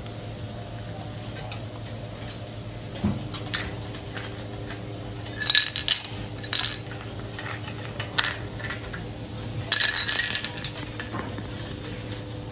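Cutlery and dishes clinking in several short clatters, with ringing metal or china tones. The longest clatter comes near the end. A steady low hum runs underneath.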